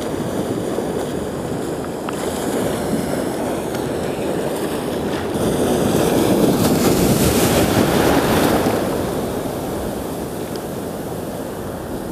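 Small sea waves breaking and washing over shallow water at the shoreline, with wind on the microphone. The surf swells louder about halfway through as a wave breaks close by, then eases off.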